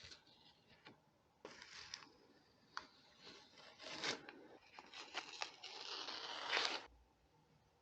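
Painter's tape being peeled off a freshly spray-painted metal tractor grille in several short and longer rasping pulls, stopping about a second before the end.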